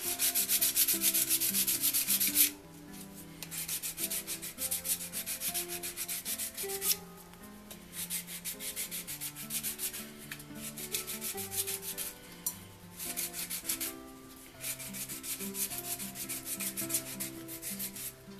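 Fine 500-grit sandpaper rubbed by hand in quick back-and-forth strokes over an antique wooden marking gauge, in several bouts with short pauses between them. The light sanding is only polishing and cleaning the surface.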